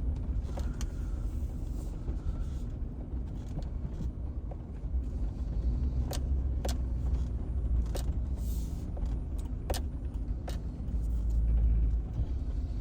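Four-wheel-drive vehicle driving slowly over rough ground, its engine and tyres giving a steady low rumble that swells louder near the end, with loose items clinking and rattling in the cab at every bump.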